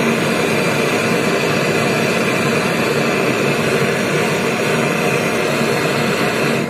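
LPG-cartridge brazing torch flame hissing steadily as it heats a copper pipe joint while a brazing rod melts into it. The flame noise cuts off suddenly at the very end as the torch is shut off.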